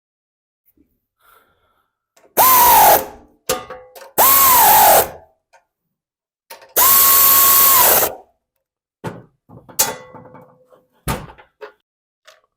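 Cordless power driver running in bolts in three bursts, its motor pitch dropping as the first two bolts pull down tight and holding steady on the third. A few clicks and clinks of parts and tools follow.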